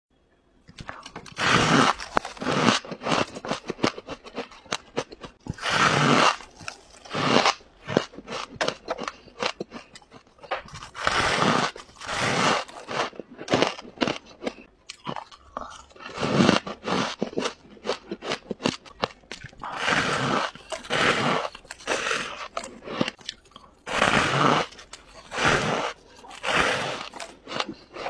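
Close-miked biting and chewing of fluffy freezer frost: squeaky crunches, a loud bite every second or two with smaller crackles of chewing between.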